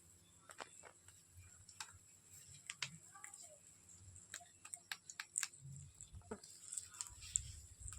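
Irregular light clicks and taps, a few a second, unevenly spaced.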